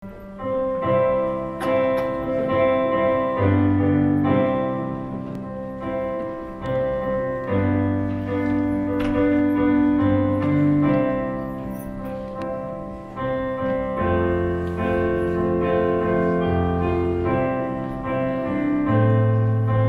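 Electronic keyboard playing slow chords, with held notes and low bass notes that change every second or two.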